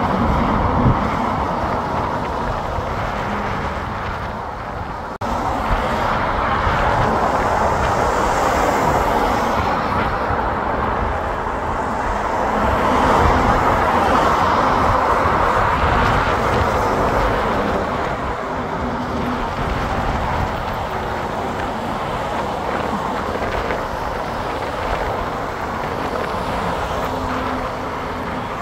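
Heavy rain pouring steadily, with an abrupt jump in loudness about five seconds in.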